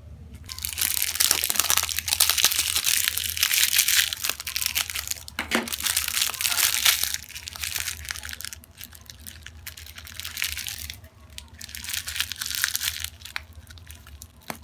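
Clear cellophane candy wrapper crinkling under the fingers. A long spell of dense crackling is followed by shorter spells with brief pauses between.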